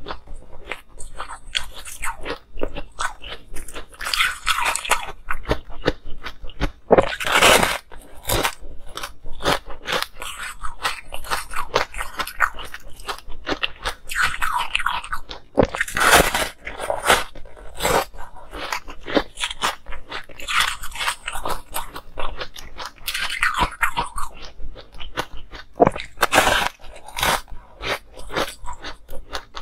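Close-miked biting and chewing of a block of frozen ice: sharp cracks as pieces are bitten off, with a louder bite every few seconds, and dense crunching in between as the ice is chewed.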